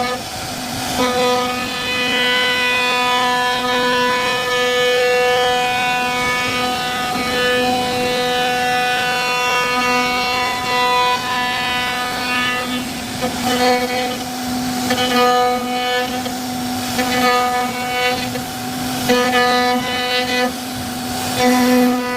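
CNC router spindle running at a steady high pitch while the bit carves wood. A rough cutting hiss swells and fades as the tool moves through the work, more often in the second half.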